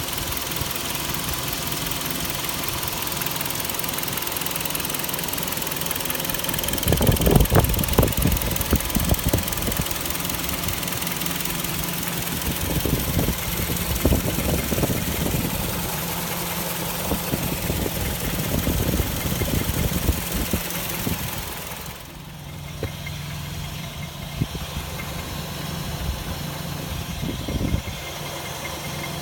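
Kia Sportage's G4KD 2.0-litre inline-four petrol engine idling, with an irregular louder knocking clatter at times; the owner is unsure whether it is a real engine knock. The sound becomes quieter about three quarters of the way through.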